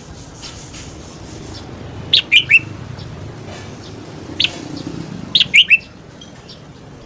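Red-whiskered bulbul singing: two short, loud phrases of three quick whistled notes each, about three seconds apart, with a single note between them. A steady low rumble runs underneath.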